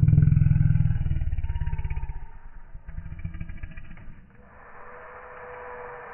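Lion roaring: a sudden deep, pulsing rumble, loudest at the start and fading over about two seconds, then a weaker rumble and a hissing breath near the end.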